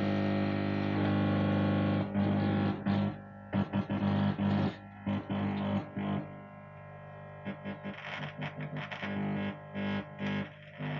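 Music played through an LA4440 amplifier's speaker, distorted, over a steady mains hum. From about two seconds in, the music keeps cutting out and coming back, the sign of a loose audio wire at the tone potentiometer being reconnected.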